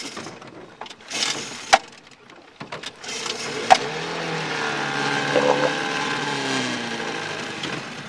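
A few knocks and sharp clicks, then an engine starts about three seconds in and keeps running, its pitch wavering and dipping a little.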